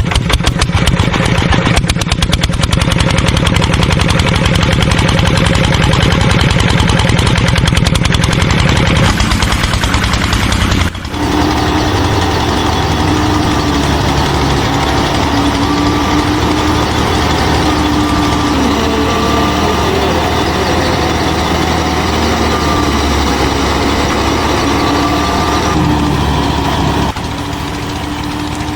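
Motor of a DIY miniature combine harvester running steadily, with a mechanical rattle and a wavering whine; the sound changes abruptly about 9, 11 and 27 seconds in.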